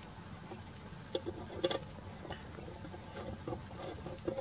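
Small scattered clicks and taps of a plastic tube being handled and pushed into a 3D printer extruder's brass push-fit fitting, the loudest a little under two seconds in.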